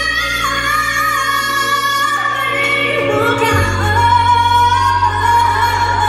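A woman singing live into a microphone over a sustained instrumental accompaniment, holding long notes; the bass moves to a new note about halfway through.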